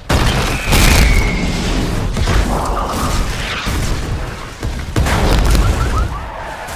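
Cinematic disaster sound effects: heavy explosions and booming impacts over a deep, continuous rumble, with loud hits at the start, about a second in and about five seconds in, and a brief falling whistle about a second in.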